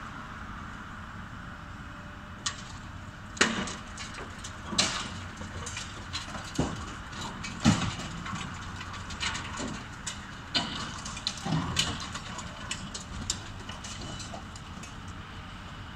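High-reach demolition excavator breaking concrete at the top of an office building: irregular cracks and thuds of concrete breaking and debris falling, about ten in all, the sharpest near the middle, over a steady machine hum.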